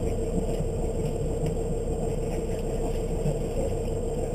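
Motorboat engine idling with a steady, even hum.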